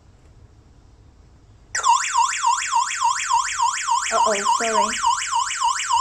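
Wi-Fi and cellular burglar alarm hub sounding its siren because a PIR motion detector has tripped while the system is armed: a loud, fast electronic wail sweeping down and up about four times a second, starting about two seconds in.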